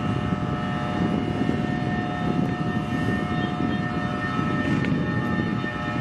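Electric train running through the station, a steady whine of several held tones from its electric drive over the rumble of wheels on rail.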